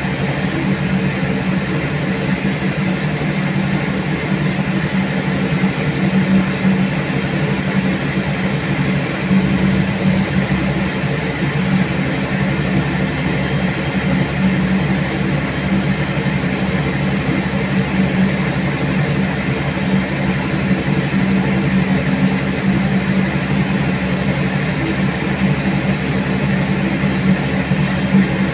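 Boeing 777-300ER airliner running on the apron, a steady loud drone with a strong low hum.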